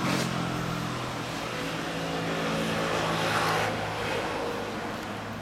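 Honda X4's four-cylinder engine idling steadily. About three seconds in, a car passes on the street and adds a rushing swell.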